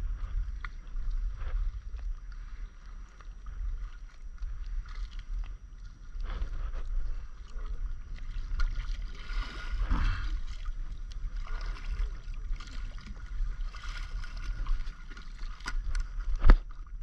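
Paddle strokes and water sloshing against a stand-up paddleboard as it is paddled across open sea, over a low rumble of wind on the microphone, with one sharp knock near the end.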